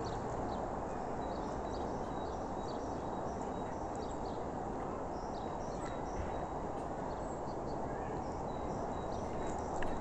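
Steady rushing noise with faint, scattered bird chirps above it.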